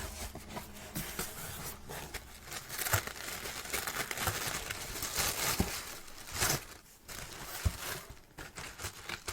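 Tissue paper being unfolded and pulled away from wrapped books, rustling and crinkling with short crackling handling noises.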